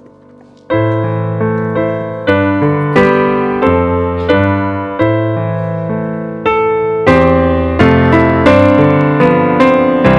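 Grand piano playing an introduction to a worship song: after a near-silent first moment, chords are struck steadily about every 0.7 seconds, each ringing and fading before the next, and they get louder near the end.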